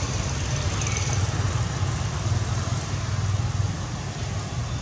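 Steady low rumble of road traffic, with one short, faint, falling high chirp about a second in.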